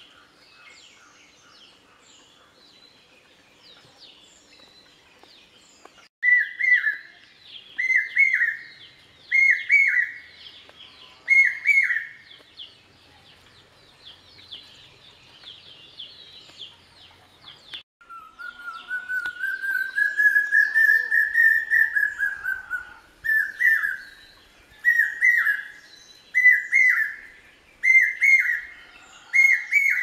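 Common hawk-cuckoo calling: loud whistled notes slurring down, repeated about every one and a half seconds from about six seconds in; midway a long run of rapid notes climbing in pitch and then dropping, then the repeated notes start again. Fainter high chirps of other birds run underneath.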